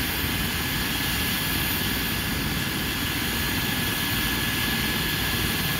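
Airbus H135 twin-turbine air ambulance helicopter running on the ground before take-off: a steady high turbine whine over dense low engine and rotor noise.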